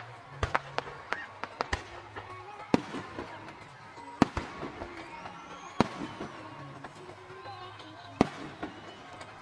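Aerial fireworks shells bursting: a quick run of small cracks in the first two seconds, then four loud booms spaced a second or two apart.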